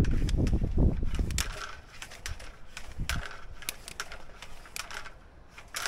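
Sewer inspection camera's push cable being pulled back out of the drain: handling noise and scattered short clicks and scrapes, with a loud low rumble in the first second and a half.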